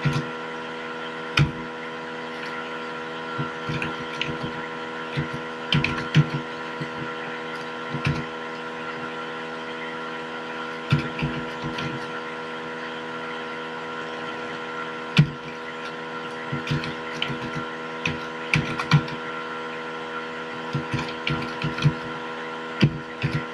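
Computer keyboard keys clicking in scattered short runs of keystrokes as a line of text is typed, over a steady electrical hum.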